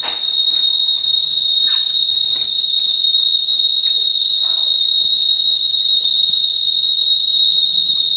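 Building fire alarm sounding a loud, steady, high-pitched tone without a break, set off by a triggered fire signal during a test of the fire alarm system.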